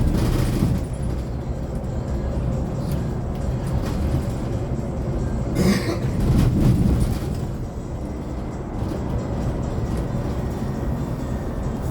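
Cabin ride noise inside a 2024 Hyundai Elec City electric bus under way: steady low road and tyre rumble with no engine note, and a sharp knock a little before halfway.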